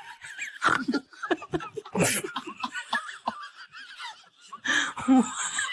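People laughing in uneven bursts, loudest about two seconds in and again near the end.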